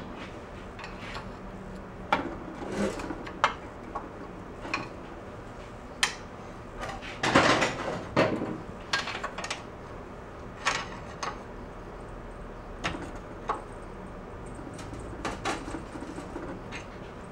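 Scattered metal clicks and clanks of hand tools worked against a snowblower engine's crankshaft pulley and set down. A longer, louder clatter of tools being handled comes about seven seconds in.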